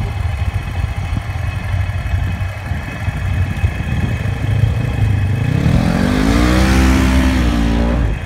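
Off-road vehicle engines: a low steady idle, then about halfway in one machine revs up, its engine note climbing and holding high and loud with a rushing hiss, before it cuts off abruptly near the end.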